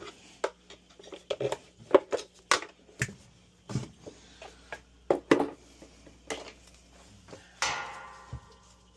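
Metal tools and dryer parts clinking and knocking irregularly during hands-on disassembly, with one ringing metallic clang near the end that dies away over about a second.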